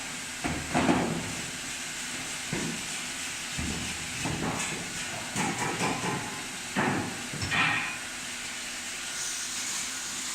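Steady hiss with a series of irregular clunks and knocks, the loudest about a second in, typical of workshop machinery being worked.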